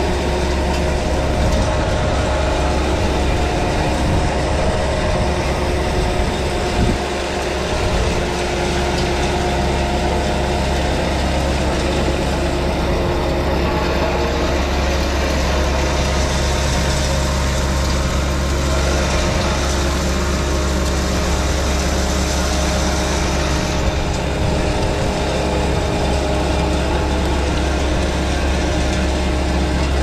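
Caterpillar 289D compact track loader's diesel engine running steadily at working speed. Its auxiliary hydraulics drive a Power Box Rake, whose rotor is churning and throwing dirt and gravel as the loader tracks along.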